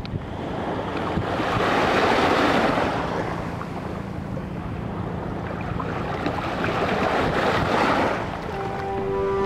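Small sea waves washing in on a sandy shore, with wind on the microphone; the wash swells twice, about two seconds in and again near the end.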